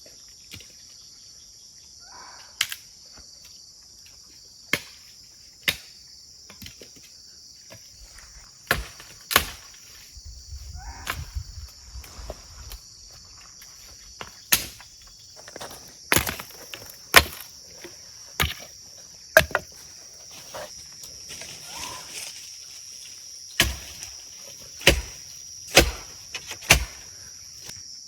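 Sharp chopping strikes, irregular and one to two seconds apart, coming more often in the second half, over a steady high chorus of crickets.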